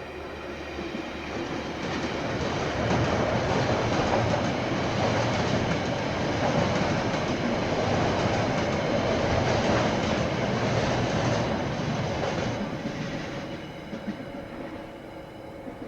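KiwiRail train passing, its wheels running on the rails with a clickety-clack. The noise builds over about two seconds, holds steady for about ten seconds, then fades away.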